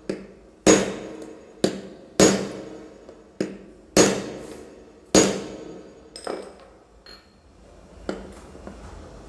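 Hammer blows on metal, about one a second, each ringing briefly, knocking the worn bearing out of a car's belt tensioner pulley; a few lighter clinks follow near the end.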